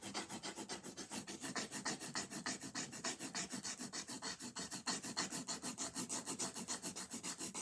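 Colored pencil scribbled rapidly back and forth on paper, an even scratching rub at about eight strokes a second.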